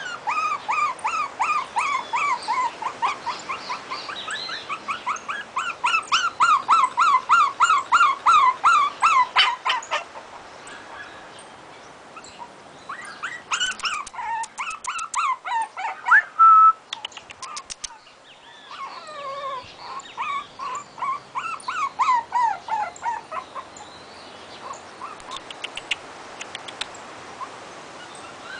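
Maltese puppy whimpering and crying in runs of short, high-pitched, falling yelps, about three a second, with brief pauses between the runs. A few sharp clicks come through near the middle.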